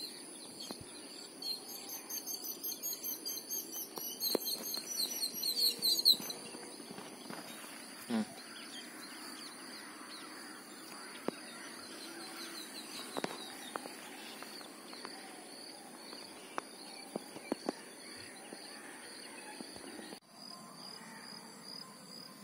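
Outdoor ambience with a steady high insect drone. From about a second and a half in, a bird calls a rapid run of high notes that grows louder for about four seconds, then stops. Later there are a few faint, scattered clicks.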